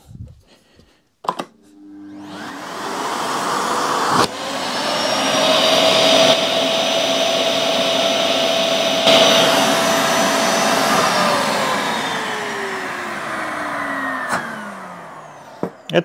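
Makita DVC150L hybrid vacuum cleaner running on mains power with its inlet sealed by a suction gauge: the motor spins up with a rising whine, runs steadily, then is switched off and winds down with a falling whine near the end. A short knock about four seconds in.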